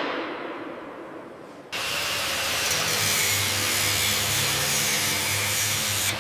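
A knock or clang dies away. About two seconds in, a power tool starts abruptly and runs steadily with a low hum, typical of drilling or fitting work during sprinkler installation.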